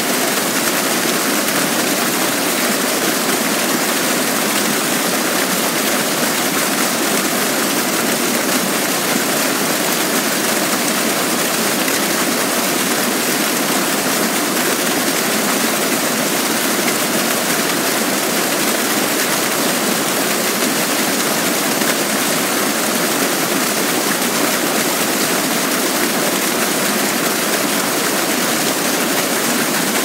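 Small waterfall plunging onto rocks, heard close up: a loud, steady rush of falling water, mostly hiss with little deep rumble, unchanging throughout.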